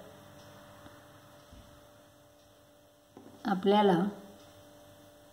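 Faint, steady electrical hum, with one brief spoken word about three and a half seconds in.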